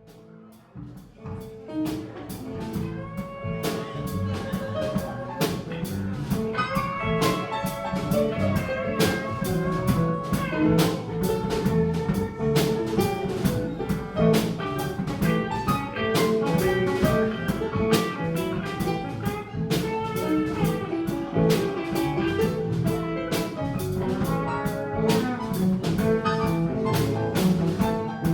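Live bar band with guitar and drum kit playing an instrumental, bluesy rock groove, fading in over the first couple of seconds and then holding steady.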